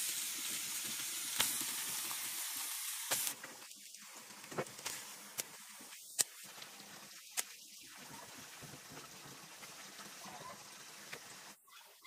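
Pieces of raw pork fat dropped by hand into a large aluminium wok, landing with scattered soft slaps and clicks. A steady hiss covers the first three seconds or so and then stops abruptly.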